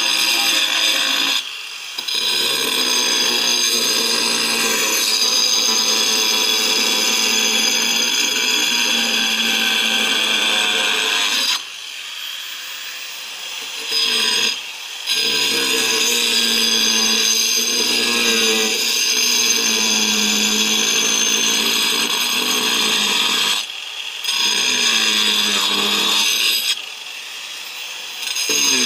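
Angle grinder with a cutting disc sawing through a corrugated asbestos-cement slate roofing sheet: a loud, steady high-pitched whine with a gritty cutting noise beneath it. The cutting noise drops away several times for a second or two and then resumes.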